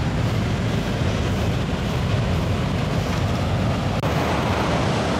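Wind buffeting the microphone in a steady, low, fluttering noise, with ocean surf washing on the beach behind it; the deepest part of the wind noise eases about four seconds in.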